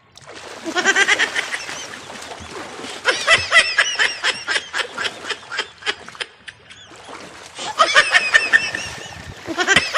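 High-pitched laughter in three runs of quick, repeated cackling notes: one about a second in, a longer one from about three to five seconds, and another near the end.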